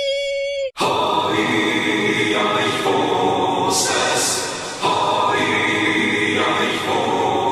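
A single voice holds one steady note, then a chorus of many voices chants together, with a brief drop in loudness about five seconds in.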